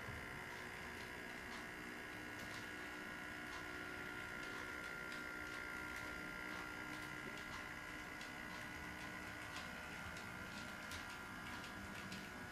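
Model train freight cars rolling past, their wheels clicking irregularly over the track joints, over a steady high hum.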